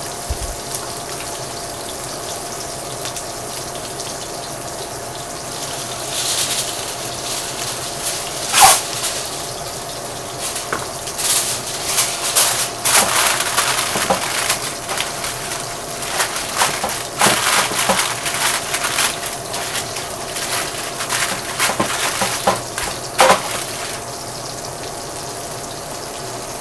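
Kitchen tap running steadily over cilantro soaking in water. From about six seconds in come many clatters and knocks of handling, with one loud knock about nine seconds in.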